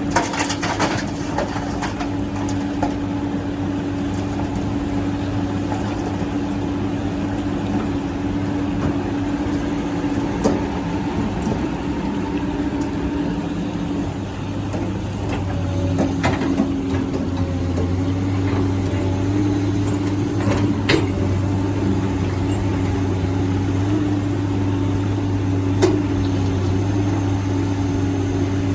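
Hydraulic excavator's diesel engine running steadily while it digs and loads, picking up a little about halfway through, with a few sharp knocks scattered through.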